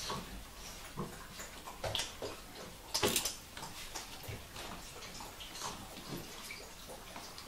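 Vizsla puppies scrambling over a person's lap and the floor of a wooden whelping box: scattered light clicks and scuffles of paws and claws, with soft rustling.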